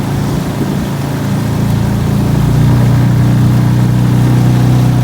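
Small Suzuki outboard motor running at low speed, pushing a jon boat. The engine note steps up slightly and gets louder about halfway through.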